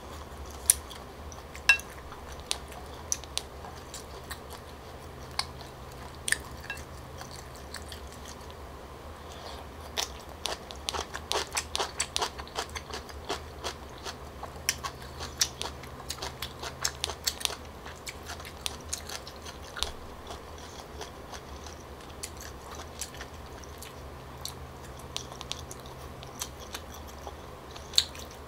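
A person chewing and biting food close to the microphone, here stir-fried tteokbokki with squid balls and green onion: many short wet clicks and crunches, thickest over a stretch from about ten to twenty seconds in.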